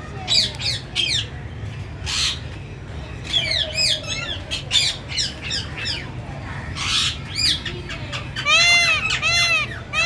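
Several birds calling: quick curved chirps through the first part, broken by a couple of brief rushes of noise, then a run of short ringing squawks, about three a second, near the end.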